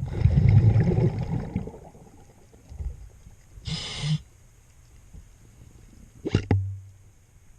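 A scuba diver's breathing underwater: a loud rumbling gush of exhaled bubbles from the regulator, then, a few seconds in, a short hiss of the regulator on the inhale. A brief knock with a low hum follows near the end.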